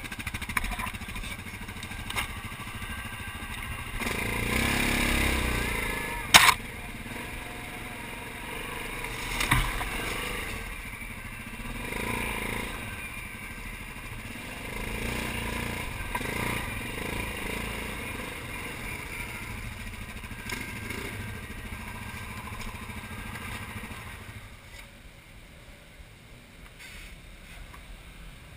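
ATV engines running and revving as the quads crawl over rocky trail, with a sharp knock about six seconds in and a smaller one near ten seconds. The engine noise drops off near the end.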